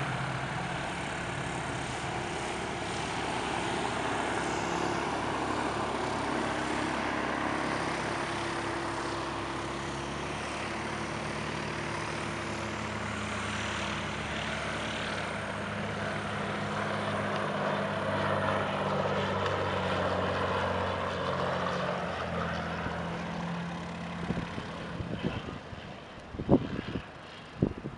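Cirrus SR22 single-engine propeller plane on landing approach, its six-cylinder Continental engine and propeller droning steadily. The drone fades away over the last few seconds, with a few sharp low thumps near the end.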